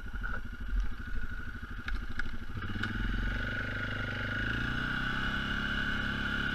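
Suzuki KingQuad 500 ATV's single-cylinder engine putting evenly at low speed, then speeding up about two and a half seconds in and settling into a steady run as the quad pulls the loaded firewood trailer, with a steady high whine over it. A few low thumps on the helmet-mounted microphone come before the engine speeds up.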